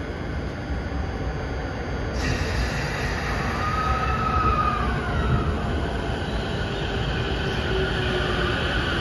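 JR E231 series electric train pulling into the station: a rumble of wheels on rails that grows louder, with high whining and squealing tones from wheels and drive that glide in pitch from about three seconds in.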